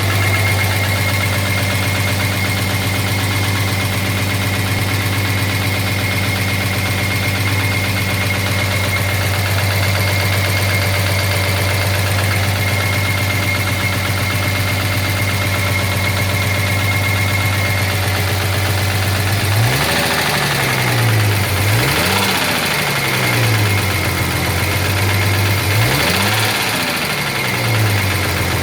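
1983 Jaguar XJS 5.3-litre V12 engine idling steadily with a knock, which the owner takes for a dropped valve seat; about two-thirds of the way through it is blipped three times, the pitch rising and falling each time.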